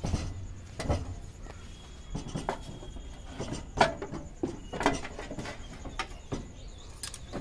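Battery cases knocking and scraping against a sheet-metal battery tray as they are pushed and shifted into place: a run of irregular knocks and clunks, the loudest a little under four seconds in.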